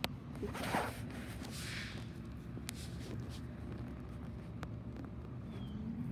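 Footsteps and phone handling as the person filming walks along the sidewalk: a couple of brief rustles in the first two seconds, then scattered sharp clicks, over a low steady rumble.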